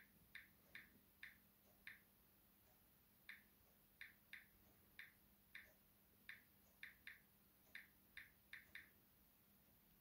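Smartphone on-screen keyboard clicking as keys are tapped one at a time: about sixteen short, quiet clicks at an uneven typing pace.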